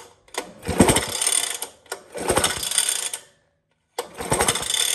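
The pull-cord recoil starter on an old Atco lawnmower engine is pulled three times. Each pull whirrs and clicks for about a second as the engine spins over freely with its spark plug out, cranked to check for a spark at the plug.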